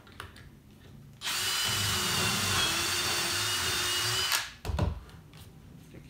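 Cordless drill running steadily for about three seconds, boring a Clamex P-14 connector hole through a drill jig into thick hardwood, then stopping. A short knock follows about half a second later.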